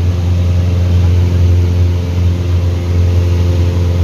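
Light aircraft's engine droning steadily at a constant pitch, a deep even hum with a stack of higher tones above it.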